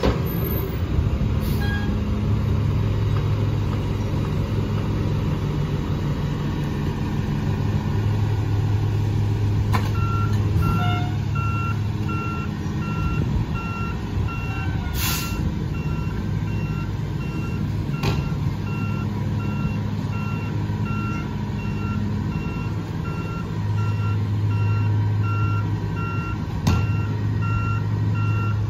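Mack MRU garbage truck with a McNeilus rear-loader body, its diesel engine running steadily and picking up in revs now and then. From about a third of the way in, its reversing alarm sounds a steady run of evenly spaced beeps. A short hiss of air comes about halfway through.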